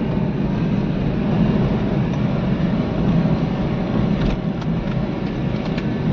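Steady low rumble of a car's engine and tyres heard inside the cabin while driving on a patchy country road, with a few faint clicks about four seconds in and near the end.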